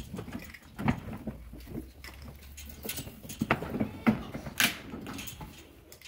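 Sheep crowded in a pen jostling and shuffling: irregular knocks, scuffs and rattles of hooves and bodies against the pen.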